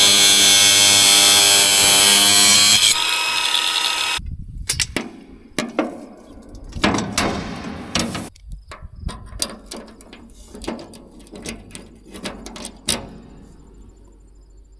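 A handheld power tool running loud and steady on a steel support, cutting it to weaken it so it will bend around a grain bin. It stops about four seconds in, followed by a run of irregular metallic clanks and knocks as the steel is handled.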